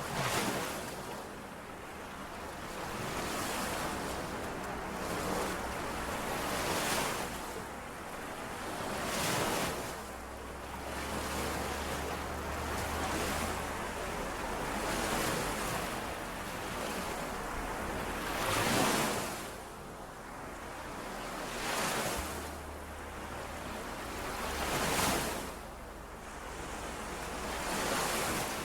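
Small lake waves washing in and out on the shore, each wash swelling and falling back every few seconds.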